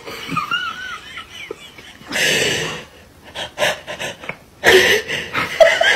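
A person laughing with wheezing, breathy gasps, the laughter breaking into quick repeated bursts near the end. A short high wavering sound comes early, before the laughter.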